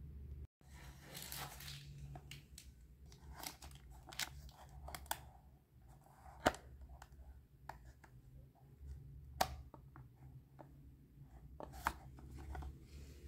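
Hands handling a small plastic toy kitchen playset: light plastic clicks, taps and rustling as it is turned and its cabinet door is worked, with three sharper clicks in the second half. A low steady hum runs underneath.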